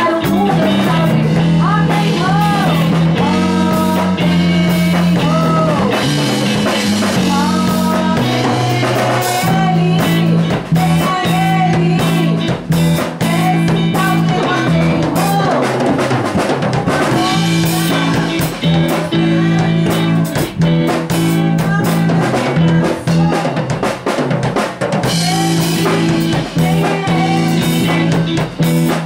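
Small rock band playing live: drum kit, electric guitar and electronic keyboard, with women singing at microphones in the first few seconds.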